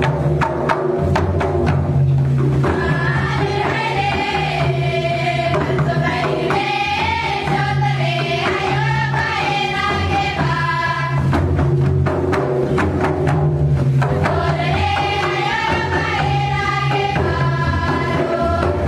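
Nagpuri tribal dance music: mandar barrel drums beating a steady rhythm, with a group of voices singing a melody over them from about three seconds in until about eleven seconds, and again briefly in the second half.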